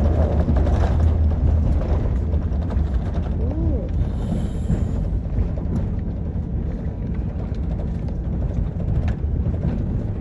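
Airliner cabin noise just after touchdown: a steady low rumble of the engines and the wheels rolling on the runway, easing slightly as the plane slows.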